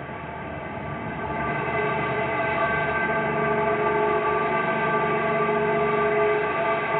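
A loud, steady drone of several held tones sounding together, swelling over the first two seconds and then holding level.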